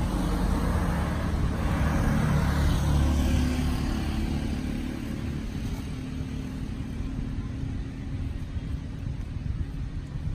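A low rumble that swells a second or two in and then eases off.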